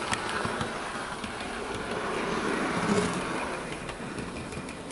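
Hornby Class 87 OO gauge model electric locomotive running along the track, its motor and wheels making a quiet, smooth hum with faint clicks. It grows louder to about three seconds in, then eases off. The mechanism runs quietly and smoothly, with no grinding.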